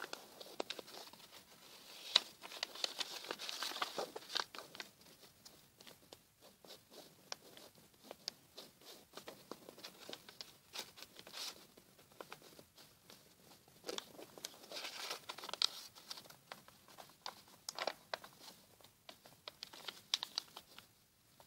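A sheet of paper being folded by hand: irregular rustling and crinkling with many sharp little ticks as the paper is handled and creased, louder in two spells, about two seconds in and again around fourteen seconds.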